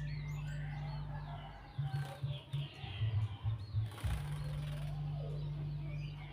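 Repeated short, high songbird chirps with quick downward sweeps, over a low hum. The hum is steady at first, breaks into rapid pulses from about a second and a half in, and turns steady again around four seconds in.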